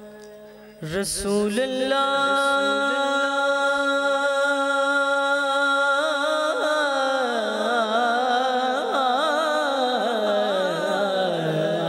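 A man singing an unaccompanied naat into a microphone. It comes in sharply about a second in, holds one long note, then turns to wavering melismatic ornaments in the second half.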